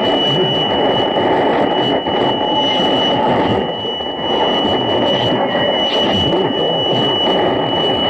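Shortwave receiver tuned to a weak station on 4865 kHz in the 60 m tropical band with the narrow filter: muffled, fluttering static and noise with a steady high-pitched heterodyne whistle. The whistle is the beat against a second station's carrier 3 kHz away on 4862 kHz.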